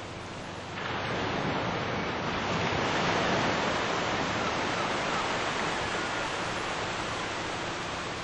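Steady rushing noise of wind and open water, with no clear engine tone, growing louder about a second in.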